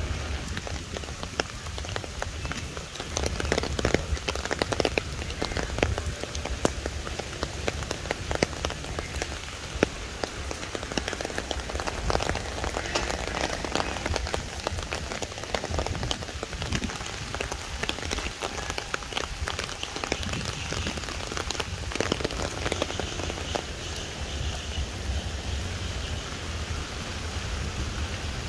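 Steady rain falling: a constant hiss of rain with many sharp ticks of single drops landing close by.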